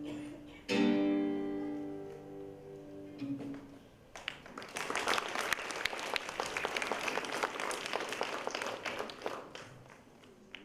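A last strummed chord on a ruan, the Chinese round-bodied plucked lute, rings out and fades. Then an audience applauds, starting about four seconds in and dying away near the end.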